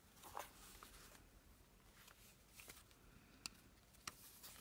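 Near silence with faint paper handling: a few soft rustles of a folded paper signature being picked up and positioned, and two small sharp ticks in the second half.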